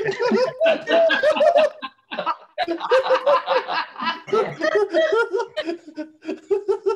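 High-pitched falsetto laughter from the sock puppet performers, rapid repeated "ha-ha" pulses in bursts, with a brief pause about two seconds in.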